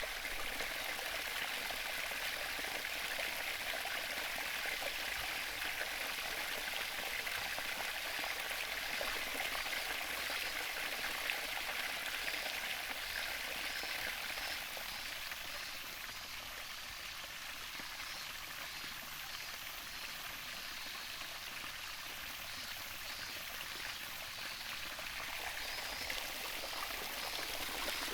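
Sea water washing on the shore in a steady rush, easing a little partway through and building again near the end.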